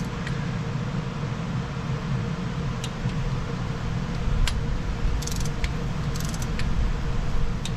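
Torque wrench clicking on bolts being tightened to 14 foot-pounds, with a few single sharp clicks and two short runs of quick ticks in the second half, over a steady low hum.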